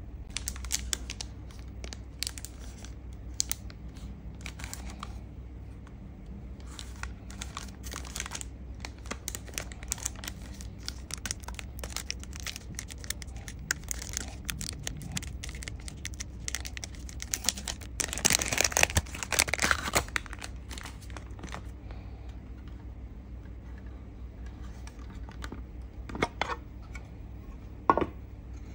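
Clear plastic film being torn and peeled off a small model-car box, crinkling in dense crackly bursts that are loudest about two-thirds of the way through. Near the end, two sharp plastic knocks as the clear display case is handled.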